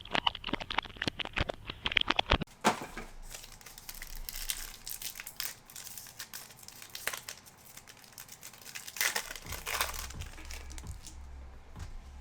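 Foil-wrapped trading-card packs crinkling and tearing as they are opened by hand. There is a dense, rapid crackle over the first few seconds, then scattered crinkles and clicks as the cards are handled.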